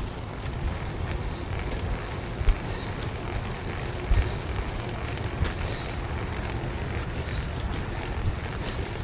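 Wind rushing over the microphone and a low rumble from a recumbent trike rolling along a paved bike path, with a few sharp knocks.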